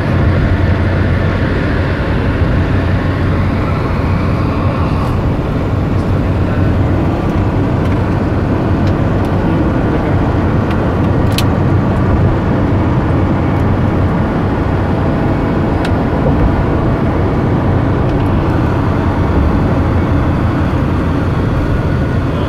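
Steady road and engine noise inside a car's cabin moving at motorway speed, mostly low rumble from tyres on asphalt. A whine rises over the first few seconds, and a brief click comes about halfway through.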